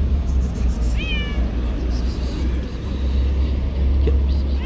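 Long-haired tabby cat meowing: one short call about a second in, falling in pitch, and another starting at the very end, over a steady low rumble.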